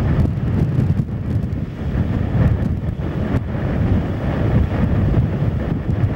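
Wind buffeting a camcorder's built-in microphone: an uneven low rumble with no let-up.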